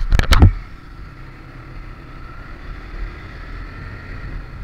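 Steady running noise of a motorcycle on the move, engine and road rumble with wind on the microphone, after a few loud thumps in the first half second.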